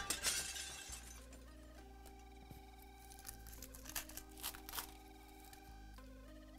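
Background music with held notes plays under card-handling noise: a burst of crinkling at the start, then a few sharp crackles about four to five seconds in as a trading-card pack wrapper is torn open.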